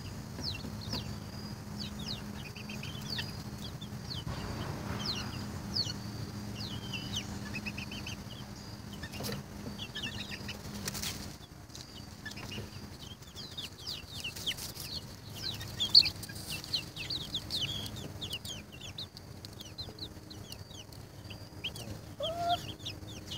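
Young Polish chickens peeping: many short, high, falling cheeps in quick succession, with a faint steady low hum under the first half and a few sharp clicks.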